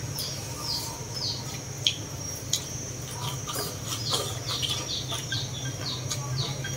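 Birds chirping in a quick run of short falling calls over a steady high-pitched insect drone, with two sharp clicks of tableware about two seconds in.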